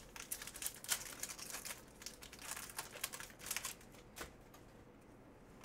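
Trading cards being handled and flipped through by hand: soft rustling and crinkling with a quick run of light clicks of card on card, dying down after about four seconds with one last click.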